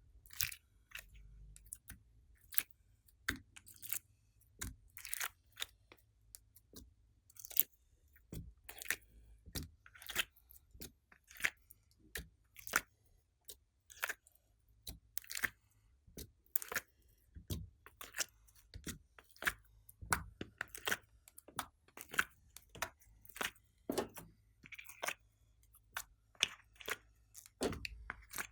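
Glossy slime being squeezed and kneaded by hand, giving a run of irregular sticky clicks and pops, a few a second.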